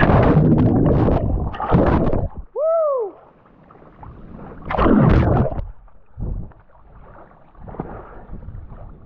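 Water churning and bubbling around a submerged action camera after a jump into a pool, muffled by the water, for about two and a half seconds. A brief pitched cry rising then falling follows, then a loud splash as the swimmer surfaces about five seconds in, and quieter water lapping after that.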